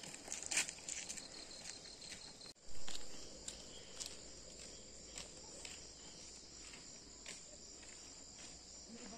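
Night chorus of crickets and other insects: a steady high-pitched shrill, with scattered light taps and a brief louder swell just under three seconds in.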